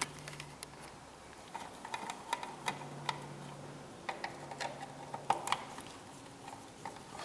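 Screwdriver undoing the mounting screws of a wall light switch: small irregular clicks and scrapes of metal on metal, the sharpest a little past the middle.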